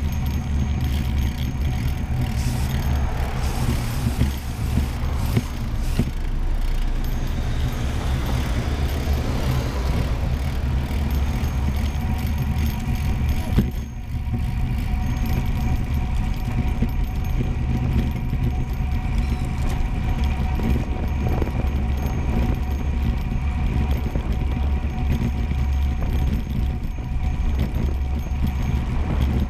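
Steady wind rushing over the microphone and road rumble from a camera riding fast downhill on wheels, with a few faint steady whines and small knocks over it. The noise dips briefly about halfway through.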